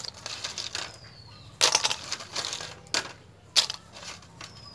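Boiled freshwater snail shells clattering against a stainless-steel bowl and each other as they are handled by hand, in several short rattling bursts and sharp clicks.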